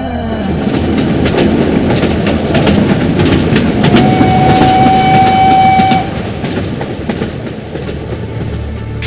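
Steam train running, its wheels clicking over the rail joints, with one steady whistle blast of about two seconds near the middle; after it the train sounds quieter.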